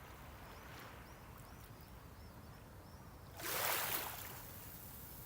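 Small waves washing onto the shore over a low steady sea noise, with one louder wave breaking and washing in about three and a half seconds in. A small bird chirps repeatedly, high and brief, in the first half.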